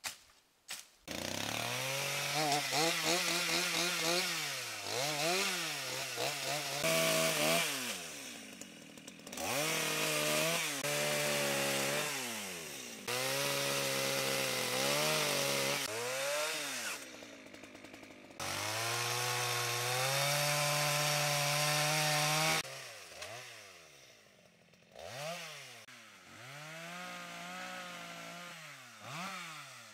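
Two-stroke chainsaw running and cutting through tree branches, its engine revved up and down repeatedly, with several held full-throttle stretches of a few seconds. It drops to a lower, idling speed near the end.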